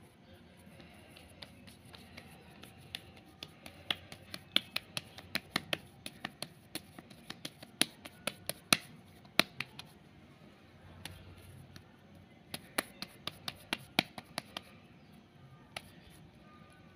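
Hands patting and pressing a stuffed ball of masa (corn dough) into a gordita: a quick run of sharp soft slaps for several seconds, a pause, then a shorter run.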